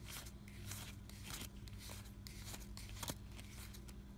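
Card-game cards being handled and sorted by hand: a series of faint, irregular snaps and ticks over a steady low hum.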